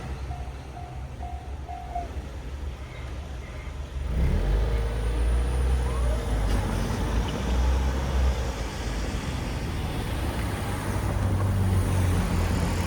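Railroad crossing alarm bell sounding its last few evenly spaced strokes and stopping about two seconds in, once the train has cleared. From about four seconds, a road vehicle's engine runs with a low, steady rumble as traffic moves again over the crossing.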